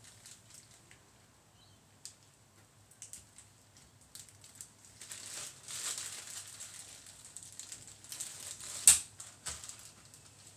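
Plastic piping bag crinkling and rustling in gloved hands as it is twisted shut, in a few spells of rustling, with one sharp click about nine seconds in.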